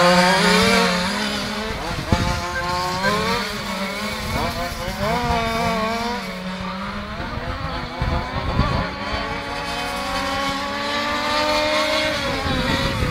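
Several radio-controlled racing cars' small high-revving engines buzzing around the track. Their pitch keeps rising and falling as the cars speed up along the straights and slow for the corners, with two or more engines overlapping.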